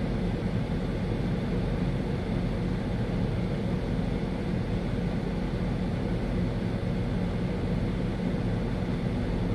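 Steady low rumble of a semi-truck's diesel engine running.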